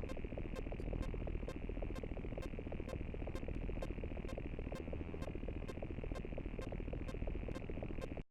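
Synthetic digital glitch sound effect: a steady, dense crackling buzz with evenly spaced clicks about two or three times a second, cutting off abruptly at the end.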